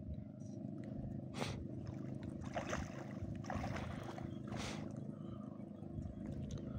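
A boat's motor running steadily at a constant pitch, with a few short noises over it.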